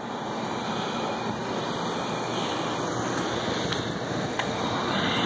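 Wind rushing across the microphone, a steady noise that builds slightly, with a couple of faint ticks.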